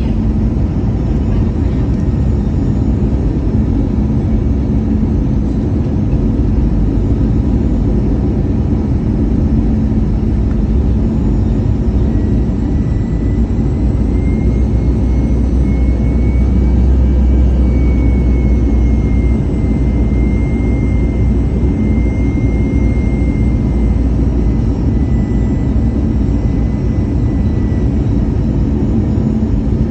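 Airbus A320 cabin noise from its jet engines and airflow: a steady, heavy rumble. A faint high engine whine comes in partway through, rises a little, then settles and fades near the end as thrust changes.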